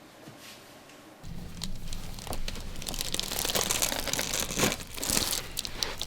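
Dense crinkling and rustling, like a body shifting on a paper- or vinyl-covered chiropractic table. It starts abruptly about a second in and is loudest in the middle.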